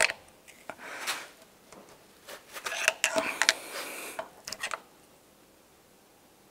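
Thin steel tool scraping and clicking in the holes of a rear axle hub's threaded wheel-bearing retaining ring, working it round to line up the locking pin holes. A few scrapes come in the first second, then a cluster of light clicks and scrapes between about two and five seconds in.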